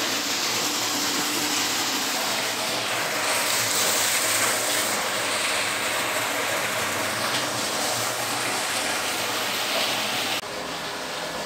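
Water tanker filling an underground tank: a steady rush of the tanker's pump running and water pouring through a hose into the tank. The sound drops a little about ten seconds in.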